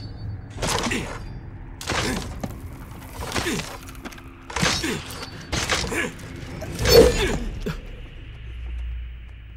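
A machete stabbing again and again through a wall, about eight sharp splintering strikes roughly a second apart, the loudest about seven seconds in, over a tense music score.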